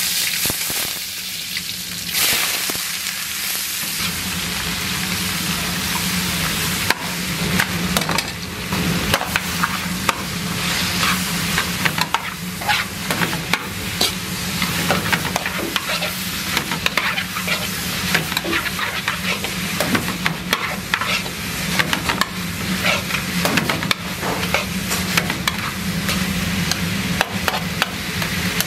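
Sliced vegetables stir-frying in a hot wok, sizzling steadily while a metal ladle stirs and scrapes them, with frequent clicks against the pan. A steady low hum runs underneath.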